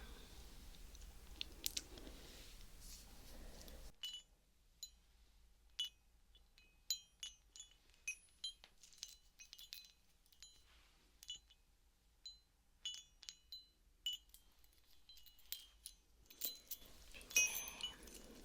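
Soft hiss for the first few seconds, then a long run of light, irregular clinks and taps with brief bright ringing, like small metal or glass objects touching, busier near the end.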